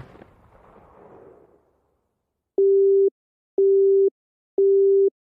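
Telephone busy tone after a call is cut off: three steady low beeps, one a second, each about half a second long, starting about two and a half seconds in. Before them, the tail of a loud noisy crash dies away.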